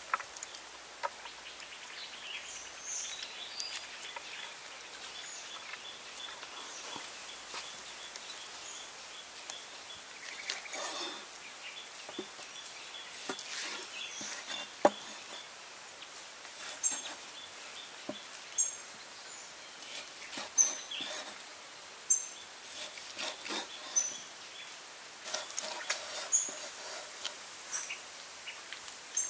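Cleaver knocking on a cutting surface while slicing seared beef: irregular sharp knocks, more frequent in the second half. Behind it is a steady outdoor hiss with short high bird chirps.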